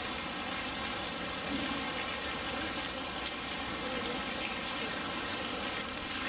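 Steady rush of running water feeding the polar bear pool, with faint distant voices underneath.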